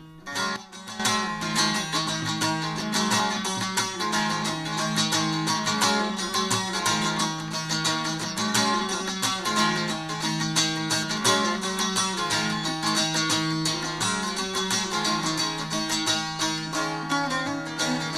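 Bağlama (Turkish long-necked saz) played solo, strummed fast with a running melody over steady low drone notes.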